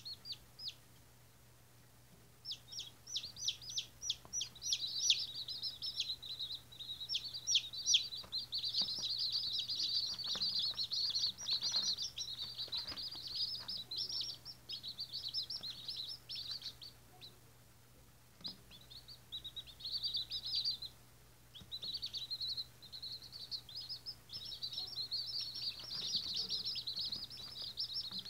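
Day-old White Australorp chicks peeping: many short, high, falling chirps overlapping in a busy chorus, with a few brief lulls.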